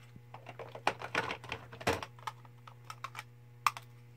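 Small plastic blush compacts clicking and clacking as they are handled, a run of irregular sharp clicks, the loudest about two seconds in.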